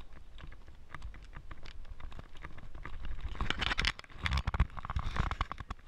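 Irregular clicks and rustles over a low rumble, getting busier and louder in the second half: handling noise and wind on a camera's microphone.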